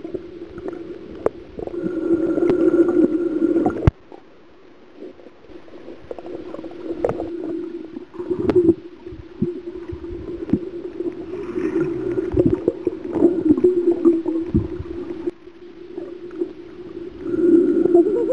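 Muffled underwater sound picked up by a camera held beneath the surface while snorkeling: a steady low hum that swells and fades, with scattered knocks against the camera or its housing. The sound drops away abruptly twice, about 4 s and 15 s in.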